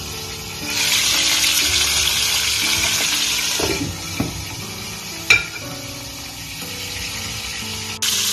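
Whole chicken frying in hot oil in a pan: a loud sizzle starts about a second in and eases after a few seconds, with one sharp metal clink about five seconds in; the sizzle comes back loudly near the end.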